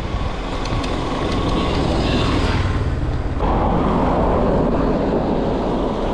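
Steady wind rumble on the chest-mounted action camera's microphone while riding an electric bicycle. A car passes close alongside and pulls ahead, and its tyre and engine noise swells the sound about three and a half seconds in.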